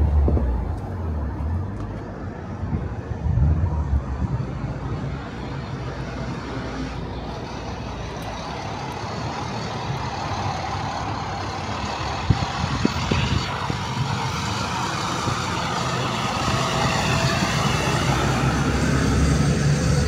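A flatbed truck drives slowly through a parking lot, its engine rumble and tyre noise growing louder toward the end as it comes close.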